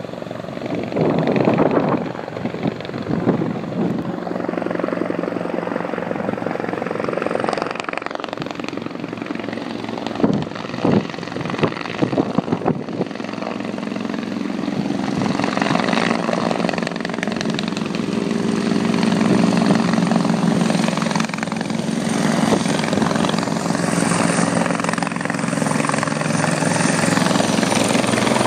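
Fire-service rescue helicopter approaching and descending to land, its rotor and turbine running steadily and growing louder as it comes closer over the second half. A few sharp knocks come about ten seconds in.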